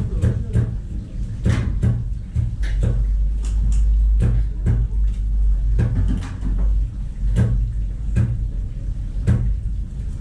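Irregular knocking and clattering of utensils and cookware being handled at kitchen counters, several knocks a second, over a steady low hum.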